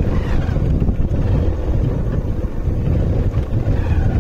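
Wind buffeting a motorcycle-mounted microphone while riding, with the motorcycle's engine and road noise running underneath as a steady low rumble.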